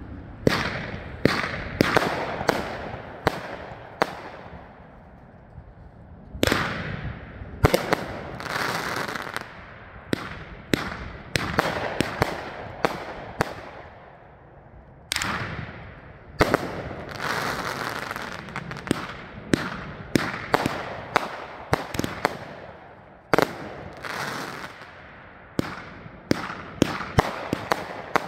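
Raccoon Fireworks 'Rules of Magic' 28-shot 500 g consumer firework cake firing: shells launching and bursting with sharp bangs in quick succession. The shots come in about four clusters, with short lulls between them.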